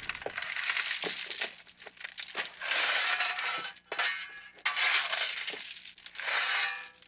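Gravel and loose stones crunching and clinking in irregular bursts, as if disturbed by something moving through or digging in them.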